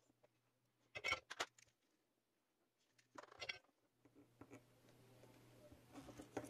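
Near silence, broken by two short clusters of small clicks and scrapes, about one second and three seconds in, as parts are handled with tweezers and solder wire on a circuit board during hand soldering. A faint low hum grows steadier from about four seconds in.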